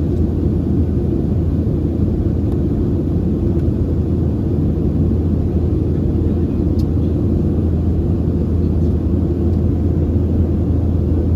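Steady low rumble of a Boeing 737's jet engines and airflow heard from inside the passenger cabin.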